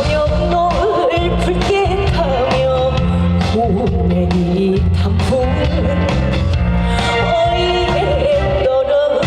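Trot backing track playing over a PA: a wavering lead melody over a steady bass and drum beat.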